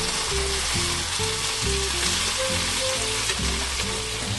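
Ground beef and onions sizzling steadily in a frying pan as they are stirred, with background music underneath.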